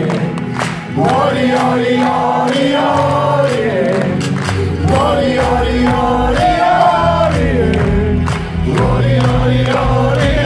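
Male singer performing a pop song into a microphone over a loud band backing track through an arena sound system, heard from the audience, with crowd noise underneath.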